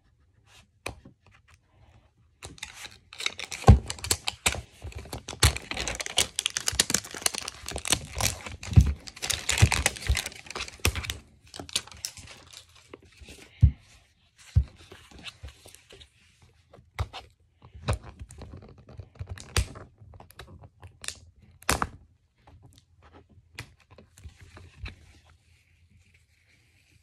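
Hands picking, peeling and tearing at a pink plastic toy ball to open it. A dense run of crackling and crinkling starts about two seconds in and lasts to around eleven seconds, then gives way to scattered clicks and knocks of fingers on hard plastic.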